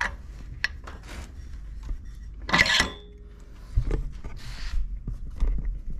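Metal clicks and knocks of a go-kart torque converter's drive-side clutch being worked onto the keyed crankshaft of a Predator 212 engine, with a louder metallic clatter and a short ring about two and a half seconds in, then a dull thump.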